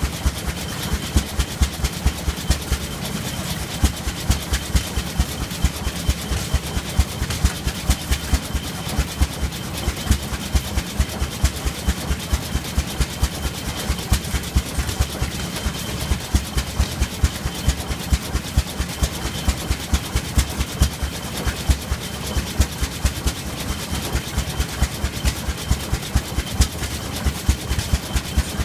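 1911 Rumely OilPull Model B tractor's slow-running two-cylinder kerosene engine, running steadily with even, regular exhaust beats.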